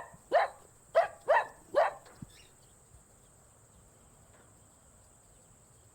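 Dog barking, four short barks in quick succession within the first two seconds.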